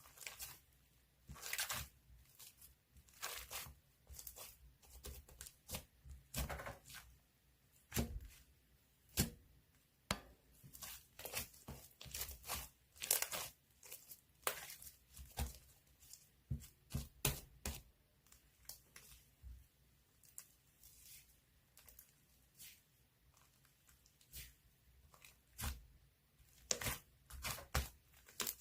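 Irregular tearing and crinkling: sharp crackles and short rustles at uneven intervals, like paper or thin packaging being torn and crumpled.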